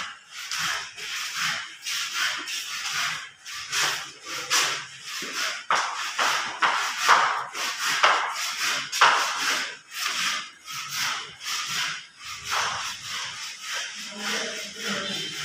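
Repeated rasping rubbing strokes, about two to three a second, with no voice.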